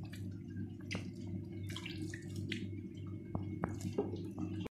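Hand and wooden spoon working damp, hot steamed couscous on a ceramic plate: scattered light taps, scrapes and wet drips as the grains are broken up and moistened, over a steady low hum.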